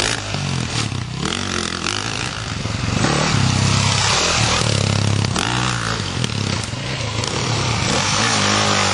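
Husaberg FE450e dirt bike's single-cylinder four-stroke engine being ridden hard, the revs climbing and dropping again and again over a constant rush of wind and dirt noise.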